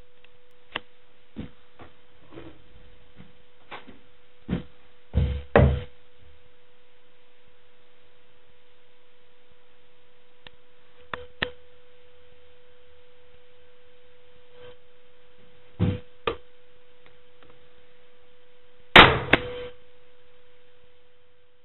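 Scattered knocks and clunks of a wooden speaker baffle ring with a subwoofer mounted in it being handled on a workbench, the loudest a double clunk near the end, over a steady hum.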